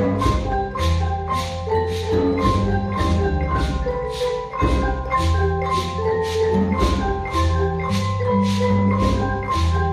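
A school percussion ensemble playing a tune on mallet instruments such as xylophones and glockenspiels, over low bass notes, with a steady beat of about two and a half strikes a second.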